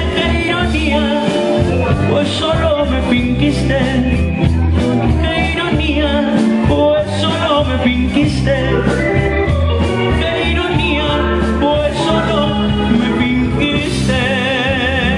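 Live grupero band playing loudly: electric bass and drums under electric guitar and a wavering lead melody, with a singer's voice over them.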